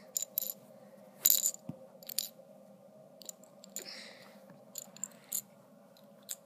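LEGO plastic pieces clicking and tapping against each other as they are handled, in scattered sharp clicks, the loudest about a second and a quarter in.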